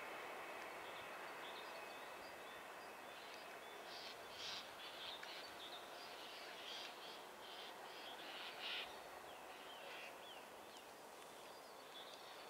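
Faint outdoor ambience: small birds chirping in short calls, thickest in the middle, over a low steady hum from a distant diesel railcar.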